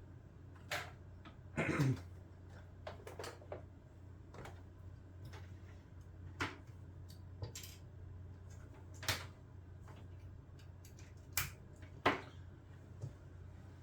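Scattered short clicks and knocks of things being handled, at irregular intervals, over a low steady hum.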